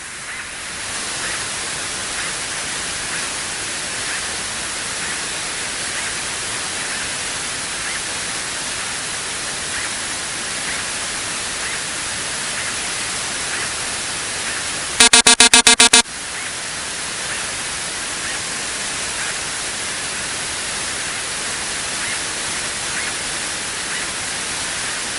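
Steady hiss on the aircraft's headset and radio audio. About fifteen seconds in, a loud pulsing electronic beep sounds for about a second.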